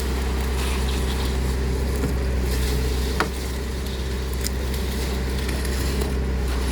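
Heavy diesel engine of a concrete pump running steadily at a constant speed while concrete is being placed, with one sharp knock about three seconds in.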